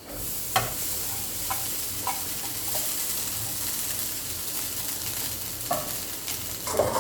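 Frying pan sizzling loudly as cooked rice goes into the hot chilli-paste base, the sizzle starting suddenly. A spatula scrapes and knocks against the pan a handful of times as the rice is stirred in.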